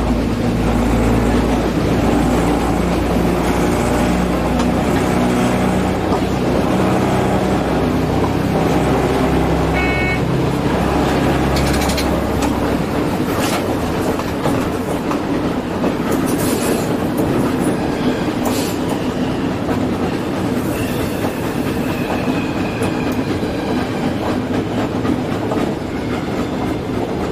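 Diesel railcar heard from the driver's cab. Its engine runs under power with a steady note for about the first half, then the engine note falls away as it coasts, leaving the rumble of wheels on the track with a few sharp clacks over rail joints.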